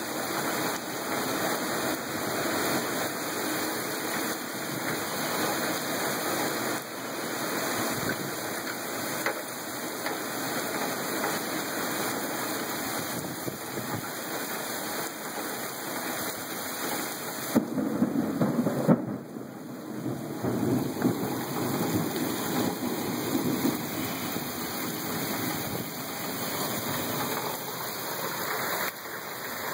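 Heavy rain pouring down in a windy thunderstorm: a steady rushing hiss of rain and wind. About two-thirds of the way through there is a louder surge that lasts a second or two.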